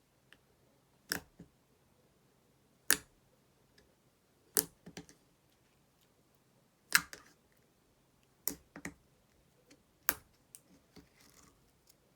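Clear slime being pressed and worked by hand, giving sharp clicking pops about every one and a half to two seconds, each followed by a smaller pop or two.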